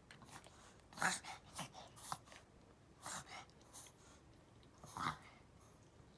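An elderly Chihuahua reverse sneezing: a string of about seven short, harsh breath noises at irregular intervals. The vet judged this to be reverse sneezing, not tracheal collapse, and nothing to worry about.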